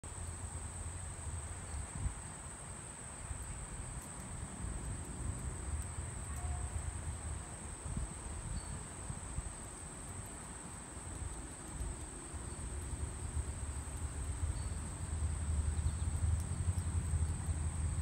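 Insects, likely crickets, chirring in a steady high-pitched drone, under a low rumble on the microphone.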